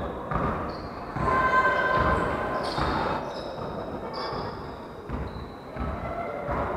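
Basketball bouncing on a wooden gym floor as players dribble up the court, with brief high squeaks of shoes and a few voices calling, all echoing in a large hall.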